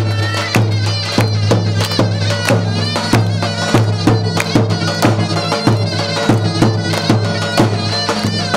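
Turkish folk dance music: a davul bass drum beats steadily, a stroke about every half second, under a shrill, wavering reed-pipe melody.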